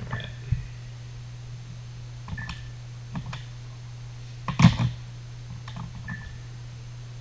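Scattered clicks and taps of a phone and desk being handled, with the loudest cluster of knocks about four and a half seconds in. There are three short beeps, near the start, in the middle and near the end. A steady low hum runs underneath.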